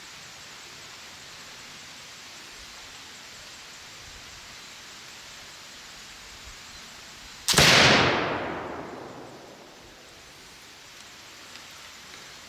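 Pedersoli Charles Moore .45 caliber flintlock dueling pistol firing a single shot: a sudden loud blast about two thirds of the way through that dies away over about two seconds.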